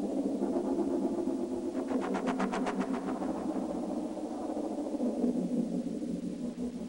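Electronic soundtrack: a dense, steady drone, with a rapid train of clicks, about a dozen a second, for a second or so about two seconds in.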